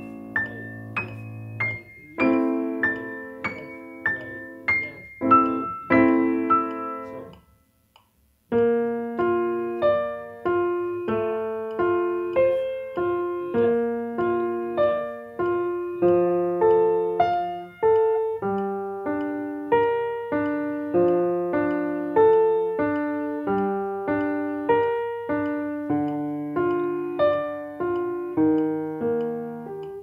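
Steinway concert grand piano played slowly: sharply accented, detached notes and chords at first, a short break about eight seconds in, then a steady, even run of single notes at about two a second, each note given the same weight in slow practice.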